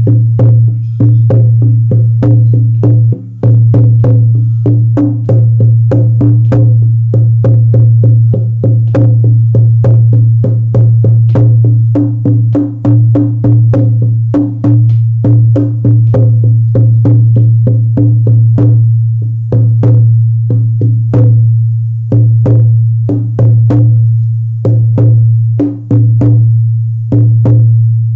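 A 14-inch buffalo-skin frame drum on an ash frame struck with a firm beater in a steady beat of about two strokes a second. Each stroke gives a deep, ringing boom that carries on between strokes, and the last one rings out near the end.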